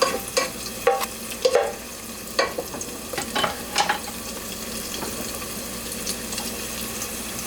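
Chopped garlic and onion frying in hot olive oil in a pot: a utensil scrapes and knocks against the pot several times in the first four seconds as they are stirred, then a steady sizzle.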